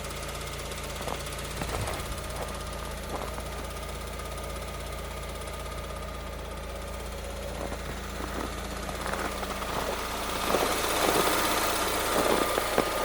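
Lada Largus 21129 engine idling with a ticking knock from the canister purge valve (EVAP purge solenoid), which is this valve's normal operation and shows up only in freezing weather. The engine sound grows louder about ten seconds in.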